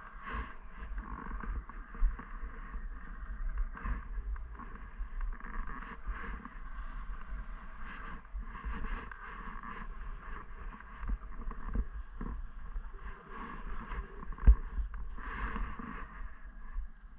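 Skis scraping and hissing over wind-crusted snow on a downhill run, with a steady low rumble and repeated louder scrapes as the skier turns. There is one sharp knock late on.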